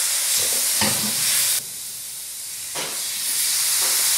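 Jaggery syrup sizzling with a steady hiss as it is poured into hot rice flour roasted in ghee in a non-stick wok, while a metal spoon scrapes and stirs through the mixture in a few strokes. The hiss drops off for about a second in the middle.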